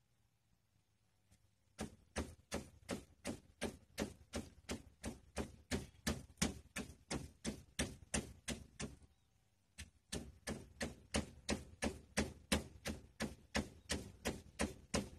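A wooden pestle pounding in a clay mortar, mashing a spicy star gooseberry salad in steady strokes of about three knocks a second. It starts about two seconds in, stops for about a second near the middle, then resumes.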